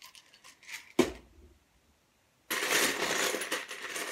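Loose plastic LEGO pieces clattering in a plastic bin as a hand rummages through them, starting about two and a half seconds in. Before that, a few light clicks of bricks and one sharp click about a second in.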